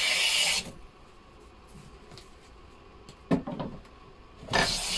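Hand plane cutting shavings along the edge of a beech cabinet door, trimming it to a pencil line where the door fits too tightly. One stroke ends about half a second in, a single knock comes a little after three seconds, and another stroke starts near the end.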